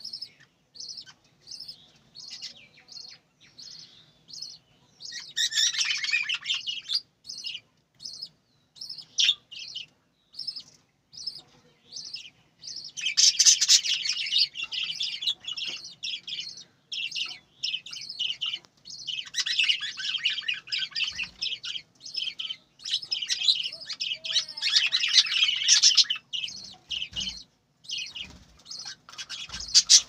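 A flock of budgerigars chirping, short high chirps repeated throughout, swelling into dense stretches of chattering several times.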